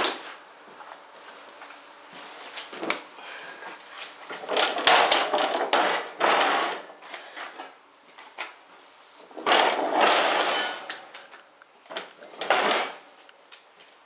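Steel Cub Cadet 50-inch mower deck dragged and turned across wooden floorboards, scraping in three long pushes: a few seconds in, around the middle, and once more near the end. There is a sharp knock at the very start.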